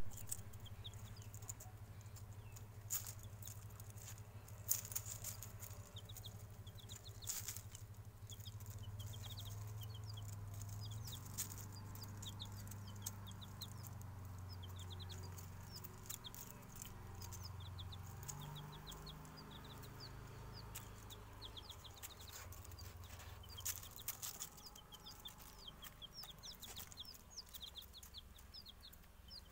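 Baby chicks peeping in runs of short, high chirps, with scattered sharp clicks and rustles of dry leaves as they peck and scratch. A steady low hum lies underneath.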